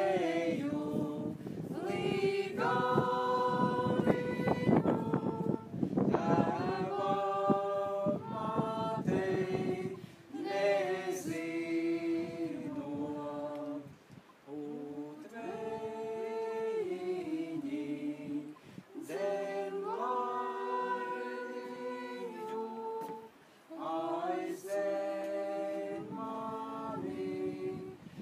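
Unaccompanied voices singing together in harmony, a cappella, with held notes in phrases separated by brief breaks.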